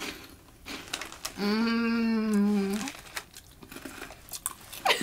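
Plastic snack bag crinkling and corn puffs crunching while being chewed. A long closed-mouth hum of approval, "mmm", lasts about a second and a half, starting around a second and a half in.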